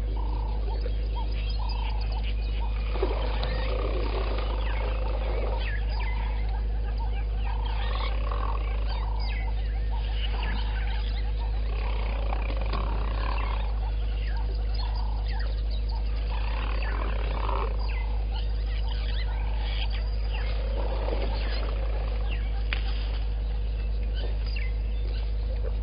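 Outdoor waterhole ambience: a steady low electrical hum with a faint constant tone, under scattered short bird calls throughout.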